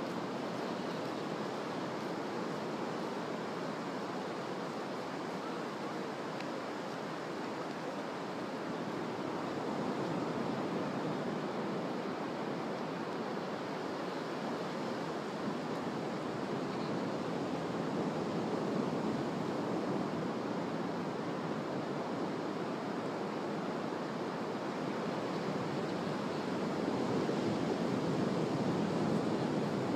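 Ocean surf washing onto a sandy beach: a steady rush of breaking waves that swells a little now and then as larger waves come in.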